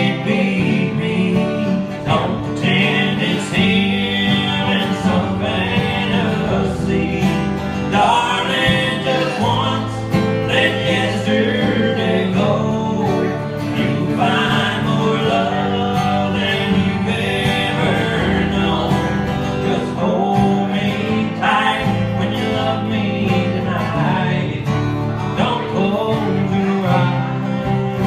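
Live country music: three guitars strummed and picked together, with a man singing lead.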